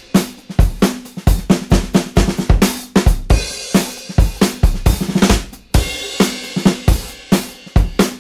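Background music: a drum-kit beat with kick drum, snare and cymbals playing a fast, steady rhythm.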